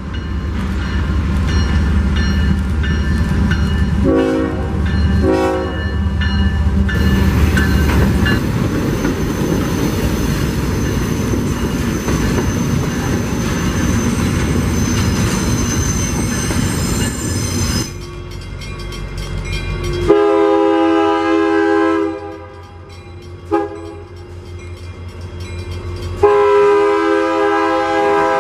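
Trains passing at speed with a steady rolling rumble, cut by two short horn blasts about four to five seconds in. From about 20 seconds in, a Union Pacific freight locomotive's multi-note horn sounds at a grade crossing: a long blast, a short one, then another long blast from about 26 seconds in.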